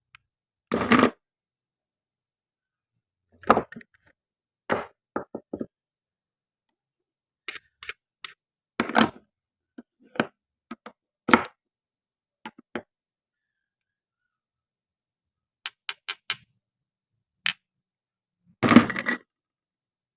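Plastic and wooden toy food and utensils being handled and cut on a board: short, sharp clicks and knocks in small groups with silence between them. The loudest knocks come about a second in and again near the end.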